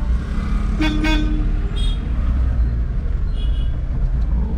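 Vehicle horns tooting in traffic: two short honks about a second in, then fainter toots, over the steady low rumble of a car on the move.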